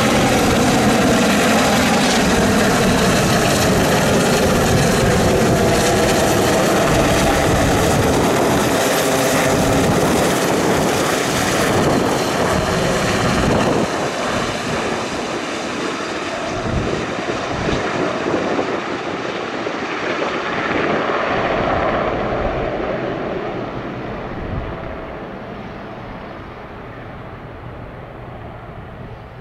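Westland Sea King HAS.5 helicopter in flight, its twin Gnome turboshafts and main rotor loud as it passes close. About halfway through the sound drops off, then fades and dulls steadily as the helicopter moves away.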